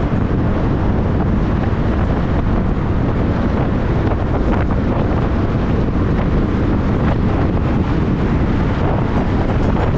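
Steady wind rush buffeting the microphone of a moving KTM Duke 200 motorcycle, with the bike's running engine and road noise beneath it.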